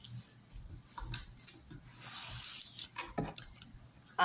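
Light rustling and scattered small clicks of objects being handled at close range, with a short soft hiss about two seconds in.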